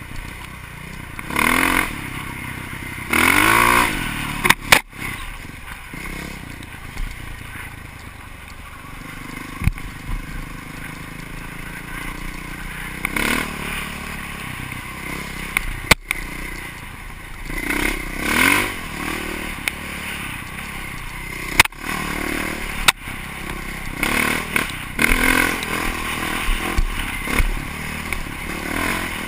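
Off-road vehicle engine running and revving in repeated surges, with sharp knocks and clatter from the vehicle jolting over rough ground.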